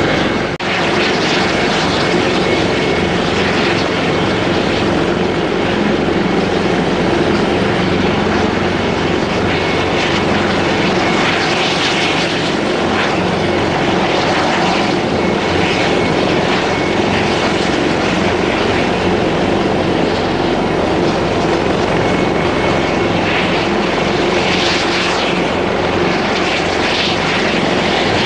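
Airbus Helicopters EC225LP Super Puma twin-turboshaft helicopter running loud and steady: continuous rotor and engine noise with a thin steady turbine whine. The sound dips briefly about half a second in.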